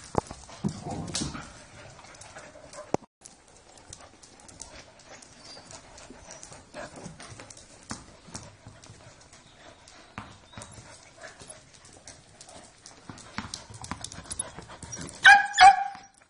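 Dogs' claws clicking on a concrete floor as several dogs move and play around each other, with a short, loud, high-pitched yelp near the end.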